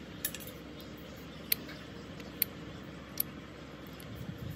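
Four short, sharp clicks about a second apart over a steady low background hum.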